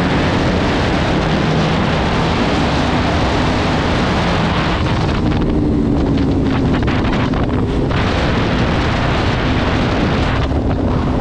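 Heavy wind noise on the microphone from a motorcycle riding at speed, with the bike's engine running steadily underneath.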